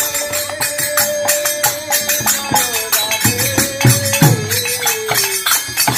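Kirtan chanting: a voice chanting Radha's name in long held notes, over a fast, steady clashing of metal hand cymbals.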